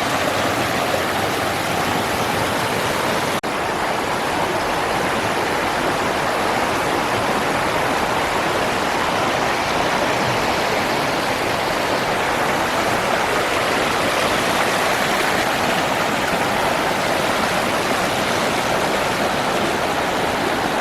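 Stream water rushing, a steady, even noise with a brief dip about three seconds in.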